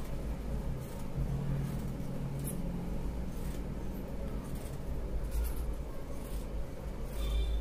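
Large steel tailor's scissors cutting through cotton fabric laid on a concrete floor: the blades close with a crisp snip roughly once a second, over a steady low hum.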